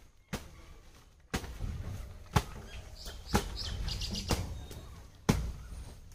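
Sharp knocks, six of them about a second apart, with a few bird chirps about halfway through.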